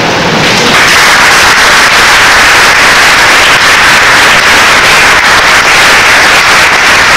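Audience applauding, a loud, even wash of clapping, distorted on the recording, that swells in about a second in and holds steady.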